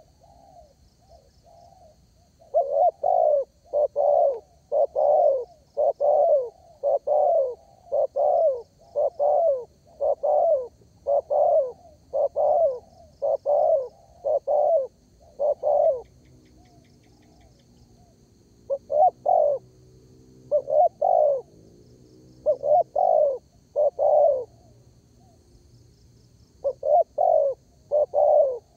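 Spotted dove (derkuku) cooing in full voice: a long run of low, evenly spaced coos, then after a pause several shorter phrases of two to four coos. A faint high chirping of another small bird or insect runs underneath.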